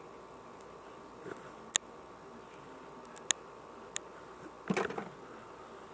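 A few sharp clicks and taps from small jewelry tools handling a ring and clasp at the bench, three distinct ones spread a second or so apart, with a brief mumble near the end.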